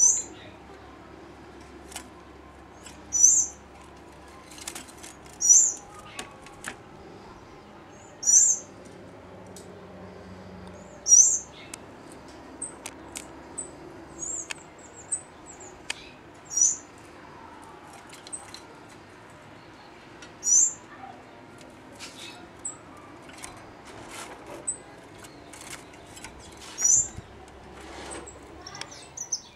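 A small caged finch calling: single short, sharp, high chirps repeated about every two to three seconds, with softer chirps between them and a few faint taps.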